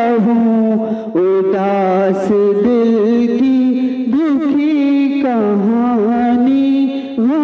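A single voice singing a hamd, a devotional hymn in praise of God, in long ornamented phrases with short pauses about a second in and near the end.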